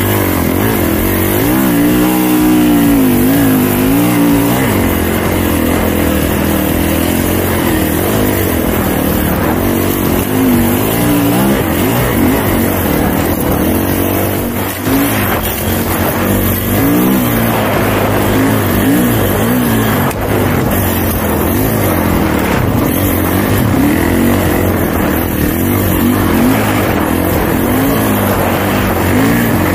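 Snowbike engine (a dirt bike fitted with a snow track) running under load while riding through snow, its revs rising and falling constantly.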